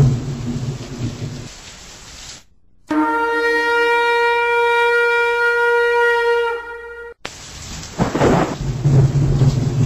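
Thunder rumbling with rain, giving way to one long held horn blast of about four seconds that cuts off sharply; the thunder and rain then return with loud rolls.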